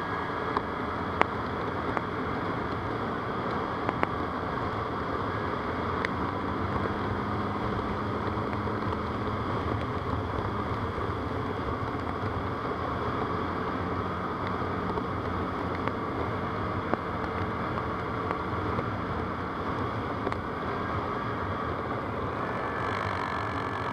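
ATV (quad bike) engine running steadily under way, with a few sharp knocks scattered through.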